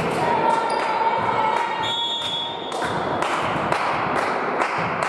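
Steady rhythmic beating, about two to three sharp beats a second, echoing in a large sports hall, with brief raised voices in the first half.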